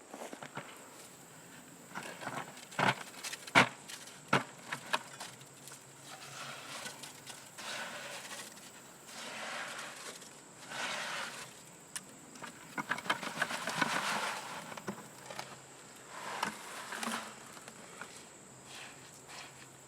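A few sharp knocks, then repeated bursts of scraping and shuffling, as of tools and feet working around wet concrete. A steady high insect drone runs underneath.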